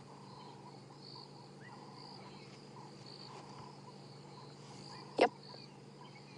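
Crickets chirping in short repeated pulses over a steady low hum, with one sharp click about five seconds in.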